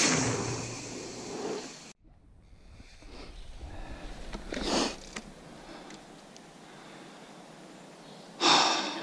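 Mountain bike riding on a dirt trail: a loud rush of tyre and wind noise at the start that fades away, then a steady low rumble of riding, with short louder whooshes about halfway through and near the end.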